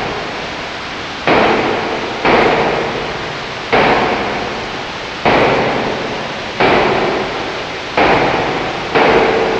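Experimental dark-ambient track made of harsh bursts of noise, seven of them, each starting sharply and fading over about a second, one every second to second and a half, over a faint steady hum.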